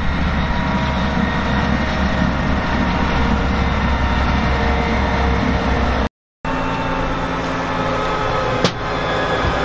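Ropa Tiger 6S sugar beet harvester running steadily with a deep engine drone. After a short break about six seconds in, the harvester is heard again with a steadier engine hum while lifting beets, and a single sharp knock near the end.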